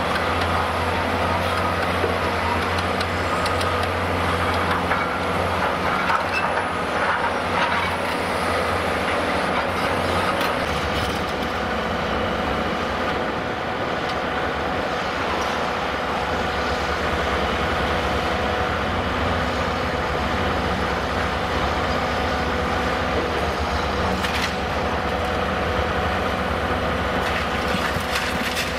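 Diesel engine of a Cat 390D high-reach demolition excavator running steadily under load with a constant hum, while its shears crush concrete. Crackling of breaking concrete in the first ten seconds or so, and a sharp crack about 24 seconds in.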